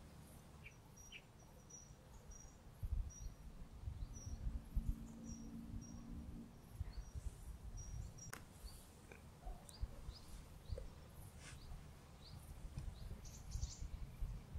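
Outdoor ambience of small birds chirping now and then, with a high chirp repeating through the first half, over a low uneven rumble. A faint low hum runs for a couple of seconds near the middle, and there is a single sharp click about eight seconds in.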